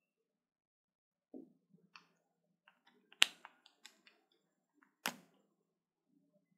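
Whiteboard marker on the board: a few sharp clicks and taps, the loudest about three seconds in and another about five seconds in, with light ticks of writing between them.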